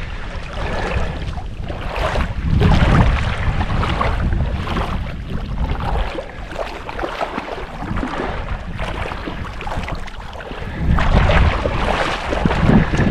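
Wind buffeting the microphone in a low rumble, with irregular splashing and sloshing of lake water.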